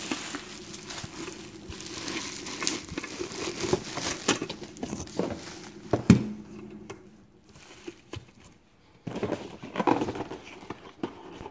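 Plastic wrapping crinkling and rustling as a stainless steel knife block is unwrapped by hand, with a single sharp knock about six seconds in.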